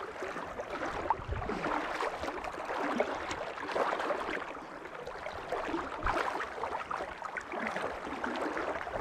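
River current washing and lapping around a wader standing in the water, a steady wash with many small splashes.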